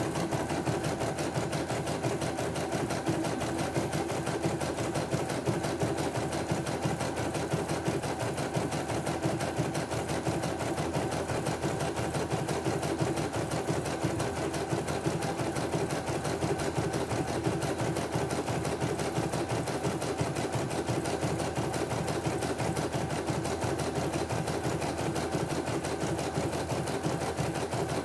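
CNY E900 computerized embroidery machine stitching out a design: a rapid, even clatter of stitches at a steady fast rate as the embroidery unit moves the hoop.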